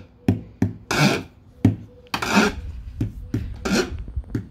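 Wooden drumstick tapping on ridged plastic hot tub steps. The taps alternate with a few short raspy scrapes of the stick along the ridged texture.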